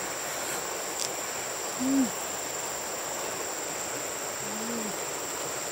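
Steady high-pitched insect drone, with two short low hums from a woman's voice about two seconds and about four and a half seconds in.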